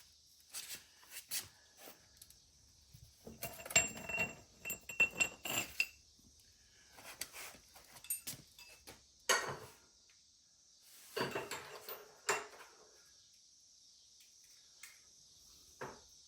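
Metal hand tools clinking and clattering against each other as they are gathered up, in scattered bursts of knocks, a few with a short metallic ring.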